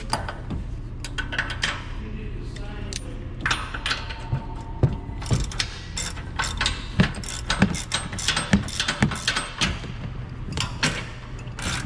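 Hand tools and steel suspension hardware being worked while camber bolts and washers go into a Ford Explorer's upper control arm mounts: irregular metallic clicks, clinks and knocks over a steady low hum.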